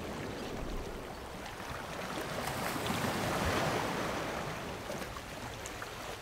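Rushing water sound effect, like surf or an underwater swell, that grows louder towards the middle and then fades away near the end.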